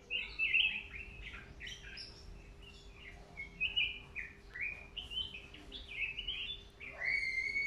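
A caged yellow songbird singing a quick, varied run of short chirps and whistled notes, ending about seven seconds in with one long steady whistle.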